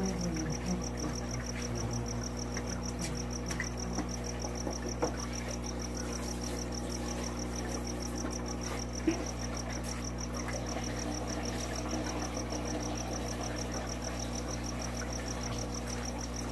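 Steady low hum of running aquarium equipment under a fast, even, high-pitched chirping pulse; a faint knock sounds about nine seconds in.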